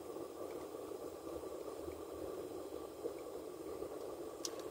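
Steady hum and hiss inside a car cabin, with a few faint straw sips, then a few sharp clicks near the end.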